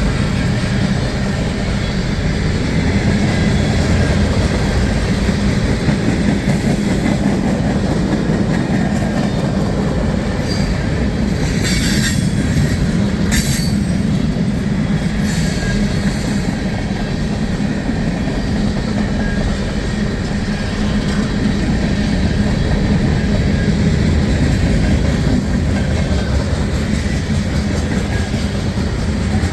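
Freight train cars rolling past, a steady loud rumble of wheels on the rails, with a few brief high wheel squeals about twelve to fourteen seconds in.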